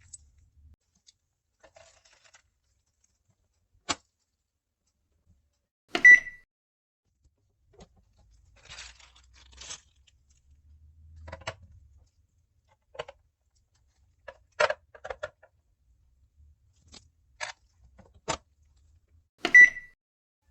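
Makeup containers and tools being handled: scattered light clicks and taps, with two sharp clinks that ring briefly, one about six seconds in and one near the end.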